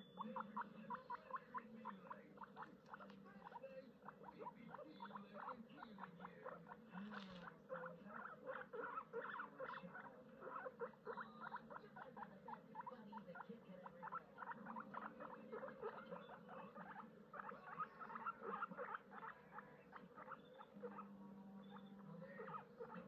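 Guinea pigs chewing hay: a rapid, steady run of small crisp crunching bites.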